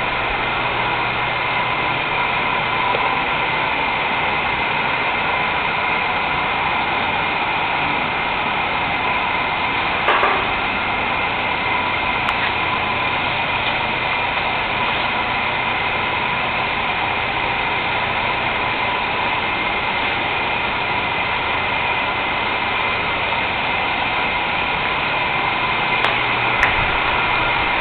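Steady mechanical running hum with a few constant whining tones, interrupted only by a brief knock about ten seconds in and a smaller one near the end.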